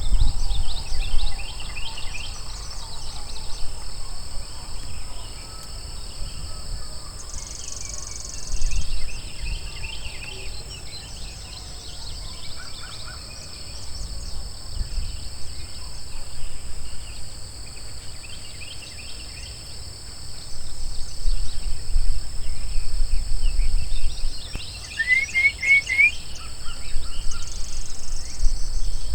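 Outdoor woodland ambience: scattered short bird chirps, with a quick run of rising chirps about 25 seconds in, over a steady high drone and a low rumble from wind on the microphone.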